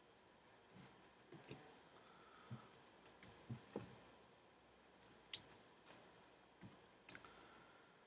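Faint, irregular small clicks and a few light knocks from a screwdriver and tiny screws as the screws holding an HP Pavilion G7 laptop's LCD panel in its lid are taken out and set down.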